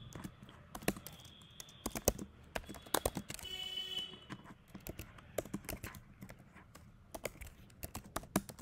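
Typing on a computer keyboard: irregular key clicks, several a second, with short pauses between bursts of keystrokes.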